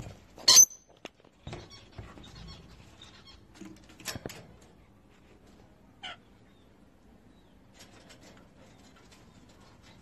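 Parrots, rainbow lorikeets among them, giving a short high screech about half a second in and another about four seconds in, with soft chatter and clicks between.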